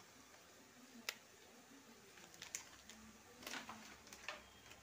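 Near silence: room tone with a few faint, scattered light clicks and taps of handling.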